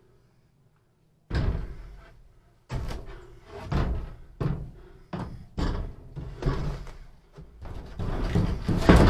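A wooden 2x4 brace being worked and knocked into place across the motorhome's roof framing: a series of irregular knocks and thumps, starting after about a second of quiet.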